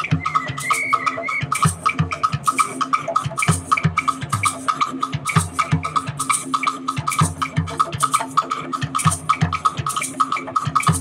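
Brazilian samba bateria playing live: a fast, steady samba groove of deep drum hits under a rapid, even high-pitched click, with a held high tone wavering over the first second and a half.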